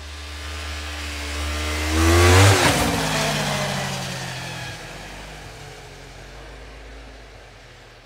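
Snowmobile engine approaching at speed and passing close by, loudest about two and a half seconds in, its pitch dropping as it goes past, then fading as it moves away.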